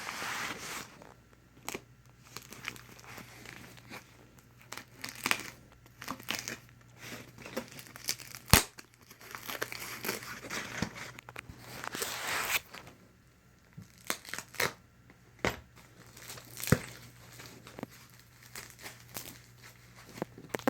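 Packaging being cut open with a work knife and pulled apart by hand: irregular crinkling and tearing of the wrapping, with scattered sharp clicks and knocks, the loudest about eight and a half seconds in.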